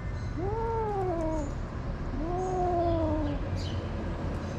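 A cat giving two long, drawn-out calls, each about a second, rising and then falling in pitch: warning calls in a stand-off between cats.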